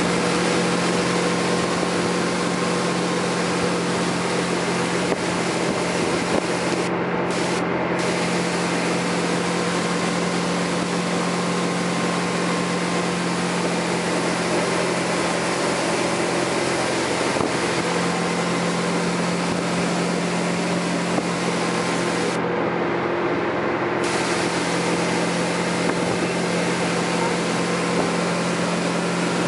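Ski boat engine running at a steady pitch while towing a water skier, over the constant hiss of spray and the churning wake.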